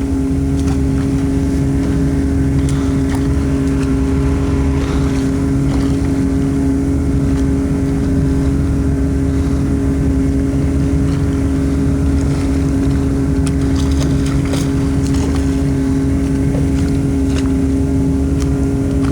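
Boat engine running at a steady speed, a constant drone that holds one pitch throughout.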